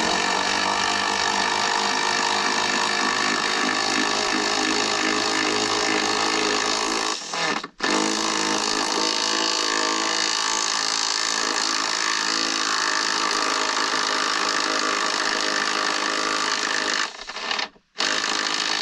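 Cordless power drill running at a steady speed under load in long pulls, on deck stair framing where lag bolts are being set. It stops for a moment about seven and a half seconds in and twice briefly near the end, then starts up again.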